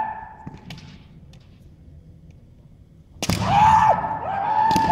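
Bamboo shinai striking kendo armour with a sharp crack about three seconds in, followed at once by loud, long kiai shouts from the fencers, with a second crack near the end. Before that, the last of a shout, then a quieter stretch with a few light taps.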